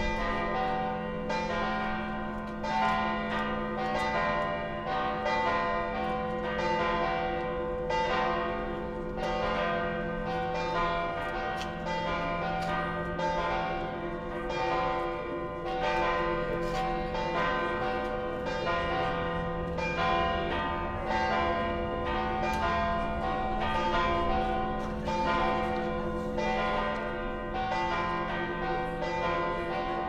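The church bells of St. Mary's Cathedral (the Dome Church) in Tallinn ringing a continuous peal: strokes follow one another quickly, about every half second, over a steady low hum of the bells ringing on.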